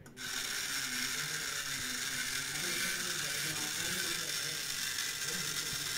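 Small permanent-magnet DC motor and gearbox running, its pinion driving the rack down to lower the bridge deck: a steady gear whir that starts abruptly just after the start.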